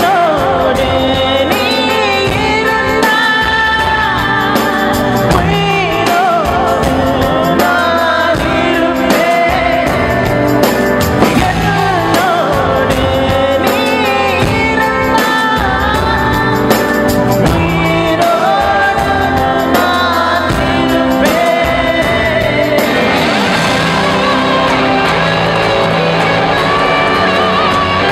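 Live singing of a Tamil film-song duet over instrumental backing, amplified through a PA system. The sung line drops away near the end, leaving the instruments.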